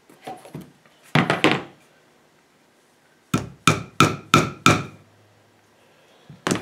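Claw hammer driving a small nail into an MDF block: a few light taps, then five harder strikes about three a second, each with a short metallic ring, and one more strike near the end.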